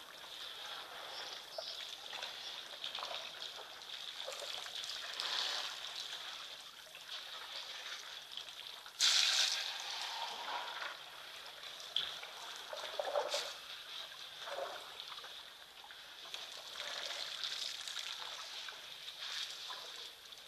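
African elephants drinking at a waterhole: water trickling and splashing as they draw it up and spray it from their trunks, with a sudden louder rush about nine seconds in.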